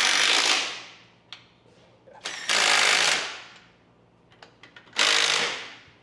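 Cordless impact wrench run in three short bursts on bolts, each burst rattling hard and then dying away over about half a second, with a few small clicks between bursts.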